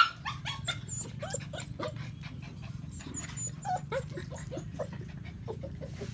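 Puppy whimpering and yelping in a fast run of short high cries, many falling in pitch, opening with one sharp loud yelp.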